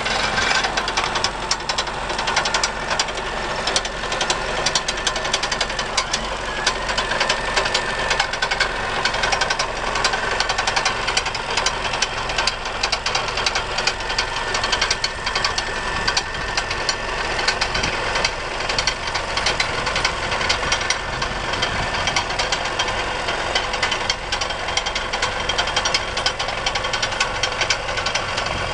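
Farm tractor's diesel engine running steadily under load as it pulls a mini cable plough through the soil, laying fibre duct, with a dense, rapid rattling throughout.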